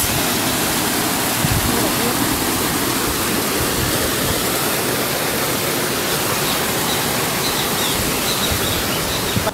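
Spring water rushing and splashing down a small earthen channel and pouring into a hollow in the bank: a steady rush.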